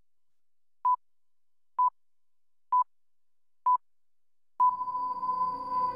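Four short electronic beeps at one pitch, about a second apart, like a count-in; on the fifth the tone holds steady and electronic trance music starts under it.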